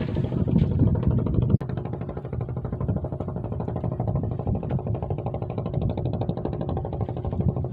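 A small engine running steadily with a rapid, even chugging, with a momentary dropout about one and a half seconds in.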